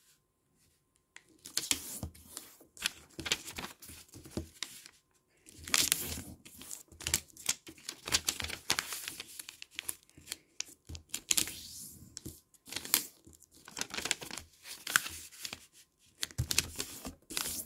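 A sheet of origami colour paper being folded by hand and its creases pressed flat: paper rustling and crinkling in short scratchy bursts with brief pauses, as it is folded across, lengthwise and diagonally and opened out again.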